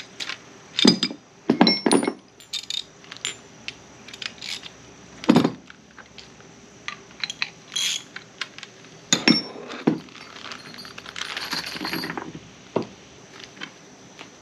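Small metal hand tools and hardware clinking and knocking as they are handled, in scattered separate knocks, with a longer rattling clatter about eleven seconds in.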